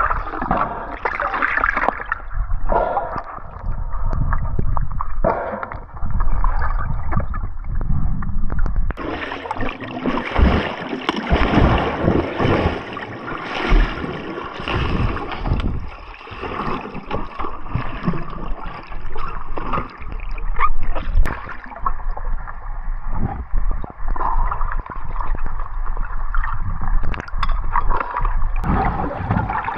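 Water splashing and gurgling, uneven, with short knocks; the sound changes character abruptly about 2, 9 and 22 seconds in.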